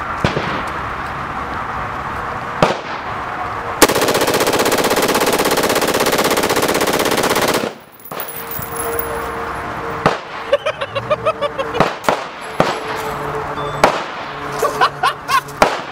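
2 Vets Arms Co. AR-15 rifle firing fully automatic: one continuous burst of about four seconds, emptying a 60-round magazine.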